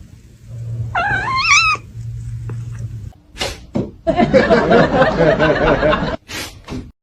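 A cat gives one wavering, whiny meow about a second in. Later come a few short scuffling noises and a rough, noisy stretch of about two seconds.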